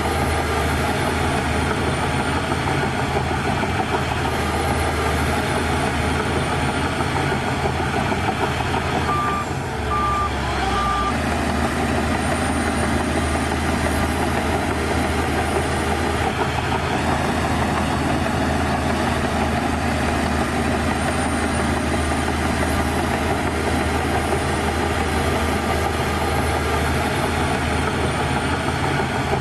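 Bulldozer's diesel engine running steadily under work. About nine seconds in, the engine eases briefly and three short backup-alarm beeps sound.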